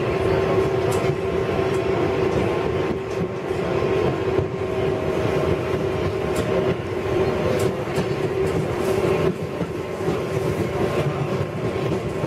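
R188 subway car running through a tunnel into a station, heard from on board: a steady rumble of wheels on rail with a steady whine on top, and a few light clicks along the way.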